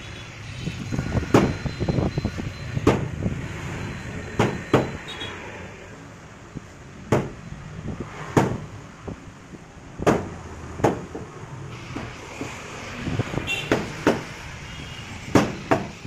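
Long fish knife cutting a skinned parrotfish fillet into strips on a wooden log chopping block: about a dozen sharp knocks, roughly one a second, as the blade goes through the flesh onto the wood, over a steady background noise.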